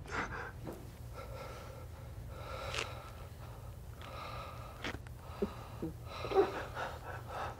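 People breathing hard, with audible gasps. The loudest sound is a short, sharp gasp about six and a half seconds in.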